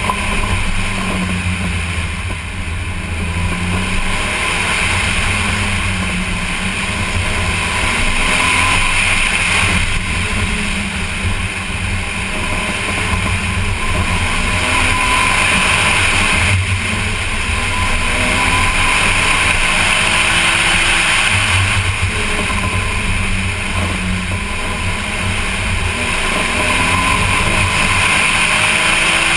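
Car engine under hard driving on an autocross course, its pitch rising under acceleration and dropping as the throttle eases, repeatedly, over a steady rush of wind and road noise.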